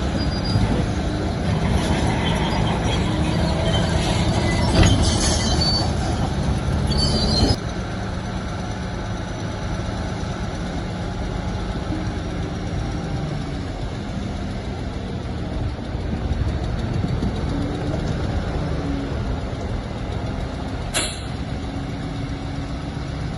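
Heavy diesel earthmoving machinery running steadily, with metallic squeaks and clanks over the first seven seconds. The sound drops abruptly about seven and a half seconds in, leaving the engine running more quietly, with a single sharp click near the end.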